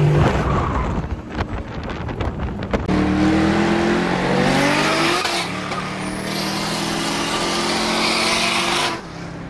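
Car engine heard from inside the cabin on a race track, pulling hard with its pitch rising about four to five seconds in, then holding steady. The sound cuts off abruptly near the end.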